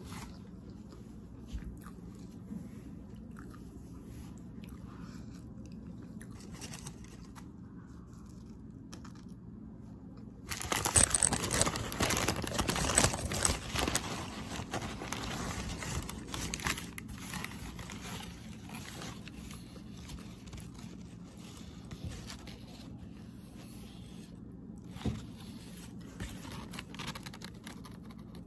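Subway sandwich's paper wrapper being handled and pulled open: a loud stretch of crinkling and tearing paper a little before the middle, lasting about six seconds, then lighter rustles and clicks. A steady low hum runs underneath.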